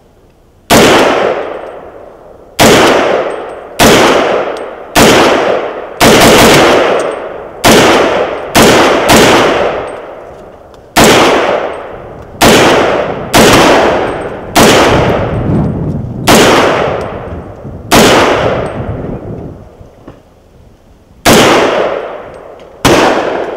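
A 300 Blackout AR-15 pistol with an 11.5-inch barrel firing a string of about eighteen semi-automatic shots, one every second or so, with a pause of about three seconds near the end. Each report is loud and sharp, followed by a long echo. The gun cycles reliably through the string.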